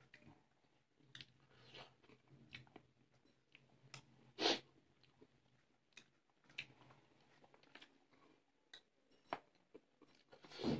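Faint chewing and small mouth and finger clicks of people eating, with a louder short noisy smack about four and a half seconds in and another near the end.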